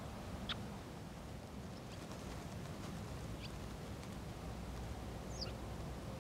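A few short, high bird calls over a steady low outdoor rumble: one sharp chirp about half a second in, another around the middle, and a brief downward-sweeping call near the end.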